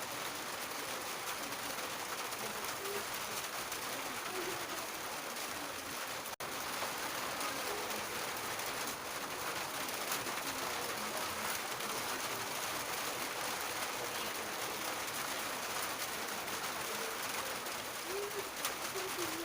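Steady rain falling on a roof, an even hiss of drops. A few short low-pitched calls sound near the start and again near the end, and the sound drops out for an instant about six seconds in.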